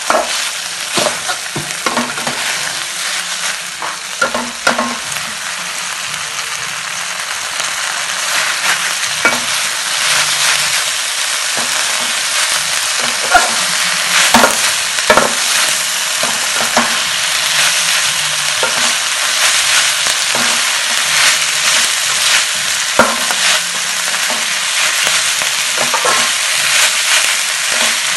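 Cow tongue stir-fry sizzling in a hot steel wok as it is tossed with a metal ladle. The ladle scrapes and knocks against the pan many times at irregular intervals over a steady sizzle.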